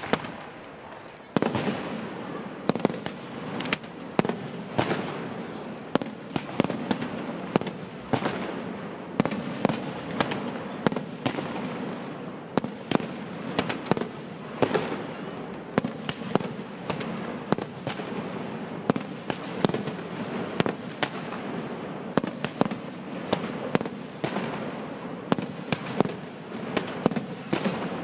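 Aerial fireworks display: an irregular run of sharp shell bursts, about one or two a second, over a dense continuous crackle that swells about a second in.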